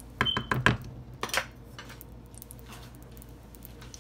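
Kitchen utensils clattering against pots and pans: a quick run of clinks and knocks in the first second, one with a short metallic ring, then another clank about a second later.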